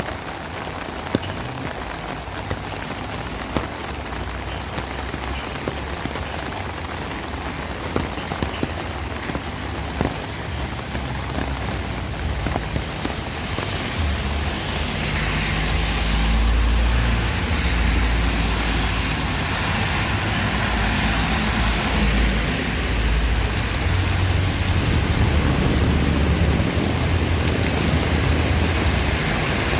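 Heavy rain falling steadily, with scattered sharp drip or drop hits in the first half. About halfway through it grows louder and a low rumble joins in.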